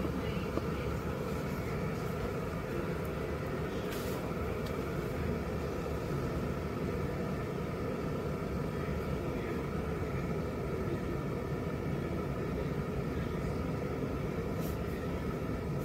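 Electric kettle heating water: a steady, even rumble as the water works toward the boil.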